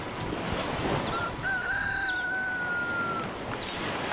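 Wind rushing on the microphone. A thin tone, falling slightly in pitch, runs for about two seconds in the middle, and short high chirps come about once a second.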